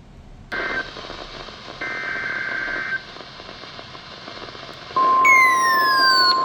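NOAA Weather Radio receiver opening up with a hiss of static, then short bursts of buzzy two-tone digital data (the SAME header that codes a new alert). About five seconds in, the steady warning alarm tone starts and holds, with a falling whistle sliding down over it.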